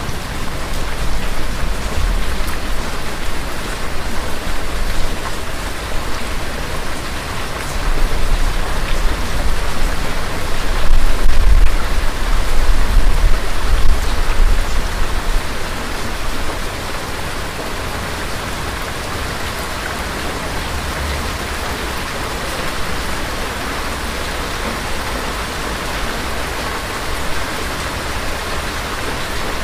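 Steady rain hissing, with a long, low rumble of thunder that rolls in about a quarter of the way through, is loudest near the middle, and fades out soon after.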